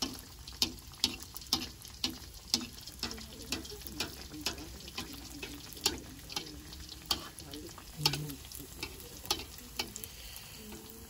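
Kue cucur batter frying in hot oil in a wok: a steady sizzle with sharp clicks or pops about twice a second.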